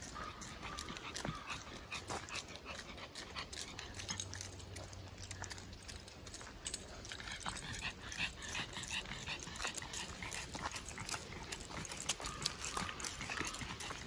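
A Pekingese breathing heavily as it hurries along, over the dense crunching of footsteps on dry leaves and gravel.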